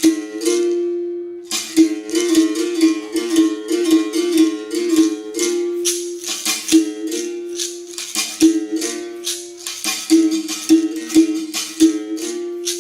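Berimbau played solo in a capoeira rhythm: the stick strikes the steel wire in quick strokes, the gourd-resonated note switching between two pitches, with the caxixi basket rattle shaking along with the strokes.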